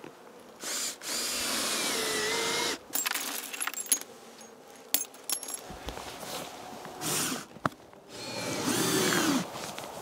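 Ridgid cordless drill running in bursts as it drives fasteners through hive wrap: a short burst, a longer run of about two seconds, then a brief one and another run near the end, each speeding up and slowing down. A few sharp clicks come in between.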